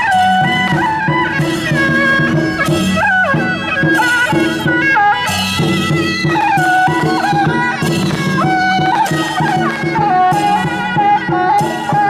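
Traditional Taiwanese folk procession music: a shrill reed-horn melody, suona-like, that slides between notes, played over a steady low drone with repeated percussion strikes.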